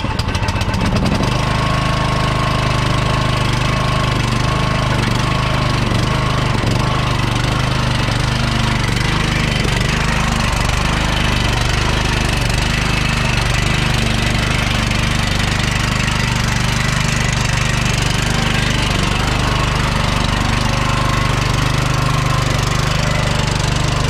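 Troy-Bilt Pony lawn tractor engine catching right at the start and then running steadily as the tractor is driven off across the grass.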